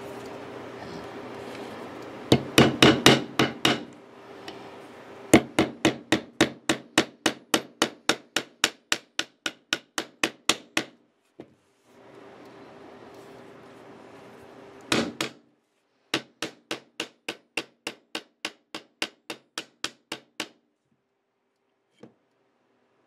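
Small fret mallet tapping fret wire down into the slots of a guitar fingerboard, in several runs of quick, evenly spaced taps, about three or four a second.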